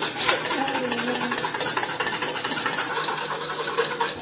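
Wire whisk beating egg whites by hand in a stainless steel mixing bowl, with rapid, even strokes scraping and clattering against the metal. The whites are being whipped into a soft, loose meringue.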